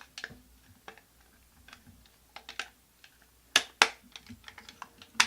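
Scattered light clicks and taps of hard plastic as C-cell batteries are fitted into a toy's battery compartment, with two sharper clicks about three and a half seconds in.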